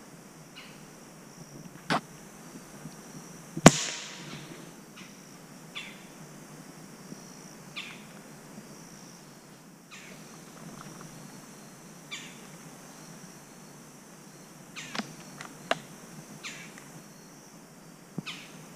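A single PCP air rifle shot about four seconds in: a sharp crack with a short ringing tail, over a steady high drone of insects. A fainter click comes about two seconds in, and a few faint snaps near the end.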